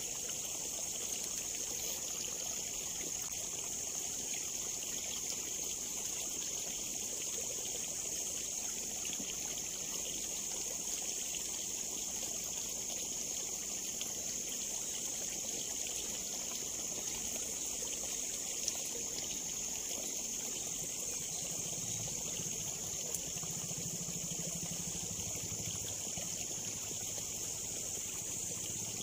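Steady trickling and flowing of water in a small ditch, an even hiss with no breaks. A faint low hum joins in about two-thirds of the way through.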